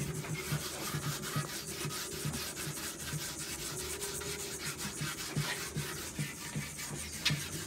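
A garlic clove rubbed in short back-and-forth strokes over the rough, unglazed outside of a large clay pot (olla de barro): a dry scraping rub in a quick, steady rhythm. This is the pot being cured, the clay soaking up the garlic to form a coating that keeps it from cracking on the fire.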